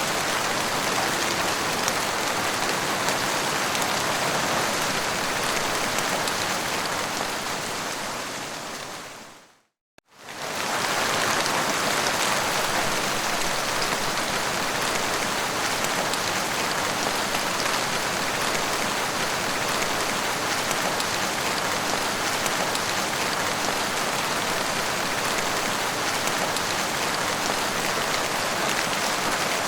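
Heavy rain falling steadily as an even hiss. About nine seconds in it fades out to silence, then fades back in about a second later.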